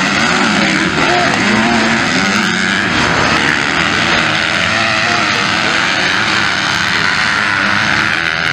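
Several motocross bikes racing together, their engines revving up and down in a loud, dense buzz.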